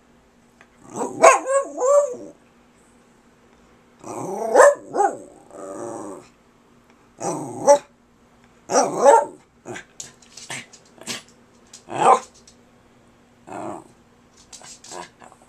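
Small white shaggy dog 'talking' to its owner: a run of drawn-out vocal sounds that bend up and down in pitch, with short pauses between, turning into shorter, sharper calls in the second half.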